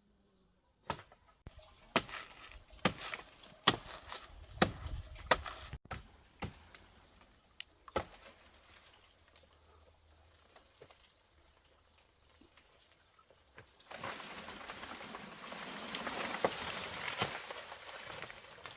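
A series of sharp chopping knocks, irregular and roughly one to two a second, for several seconds, then a quieter gap. Near the end a steady rustling, scraping noise.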